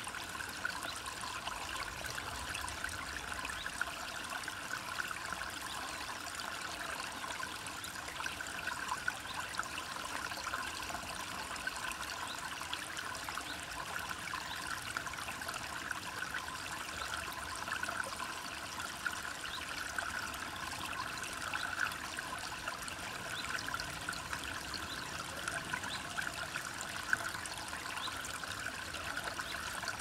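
Small forest stream running over stones: a steady trickling with many tiny splashes, even throughout.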